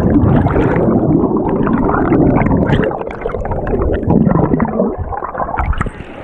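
Churning water in a wave pool heard with the microphone under the surface: a muffled, low gurgling rush. The sound opens up a little at the very end as the microphone comes back out of the water.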